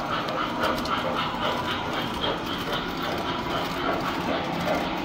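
Tinplate model trains running steadily on the layout's track, a continuous mechanical rumble with a faint pulse about twice a second.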